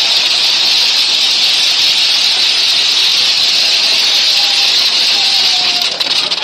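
A large burning effigy makes a loud, steady hiss as the fire burns. Faint voices sit underneath, and the sound turns uneven near the end.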